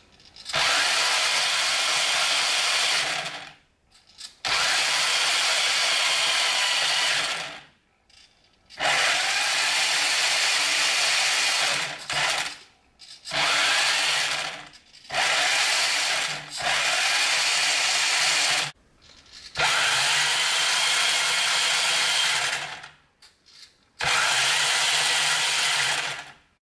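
Vintage Tamiya Holiday Buggy's brushed electric motor and gearbox running in about eight bursts of one to three seconds, switched on and off through the car's mechanical speed controller, each burst a steady whine with small changes in pitch. It is the sign that the 40-year-old motor and electronics still work.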